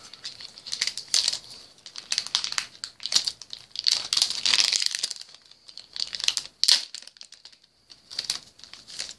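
A trading-card booster pack wrapper is handled, torn open and crinkled by hand, in several irregular bursts of crinkling.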